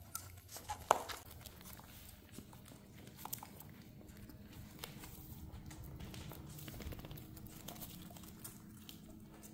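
Dachshund puppies: a short high squeak about a second in, then scattered light clicks and taps of small paws and claws on a wooden floor.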